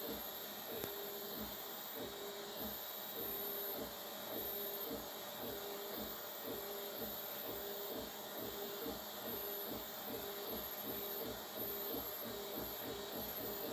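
Stepper motors of a home-built 3D printer whining as the print head moves back and forth mid-print: short pitched whines that repeat about every half second, over a steady hum.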